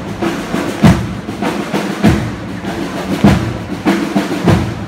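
Procession drums beating a slow march: a heavy bass-drum stroke about every 1.2 seconds, with snare taps and rolls between.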